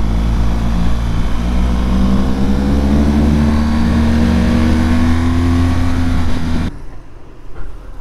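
BMW R1200GS Adventure's boxer-twin engine pulling steadily, its pitch slowly rising as the bike gains speed, mixed with wind rush at the onboard microphone. The sound cuts off abruptly about a second before the end.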